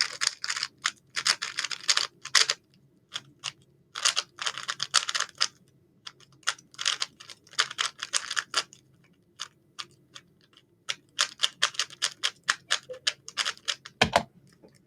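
Rubik's cube being turned quickly by hand: fast runs of plastic clicks from the layers turning, in bursts of a second or two with short pauses between sequences of moves.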